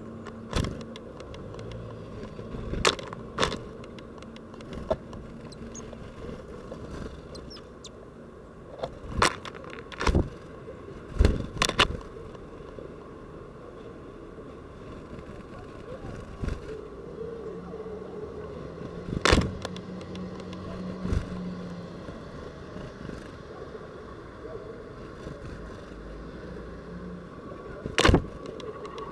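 Scattered sharp taps and knocks, about a dozen, as great tits land, hop and peck at a perch on the window glass, the loudest about a third of the way in, two-thirds of the way in and near the end. Under them runs a steady low hum of city traffic.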